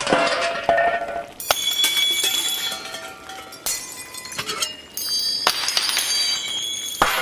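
Sound effects over a title sequence: a run of sudden, bright, glassy-metallic hits, several in a row, each ringing on with high tones.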